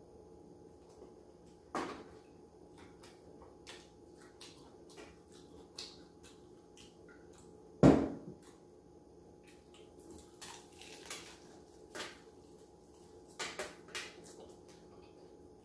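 Eating and handling a fried-chicken meal close to the microphone: scattered small clicks and taps, with one loud knock about eight seconds in and a quicker run of clicks in the last few seconds.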